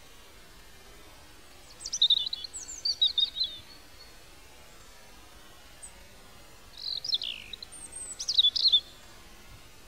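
A bird singing two short bursts of quick high chirps and gliding whistles, the first about two seconds in and the second about seven seconds in, over a steady background hiss.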